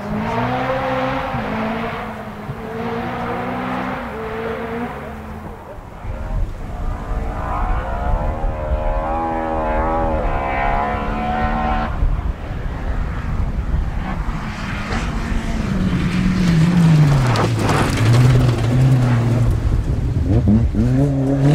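Opel Kadett C Coupe rally car's engine revving hard through the gears on a gravel stage, the pitch climbing and dropping again and again as it gets louder. It passes close near the end, with the engine note falling and gravel spraying from the tyres.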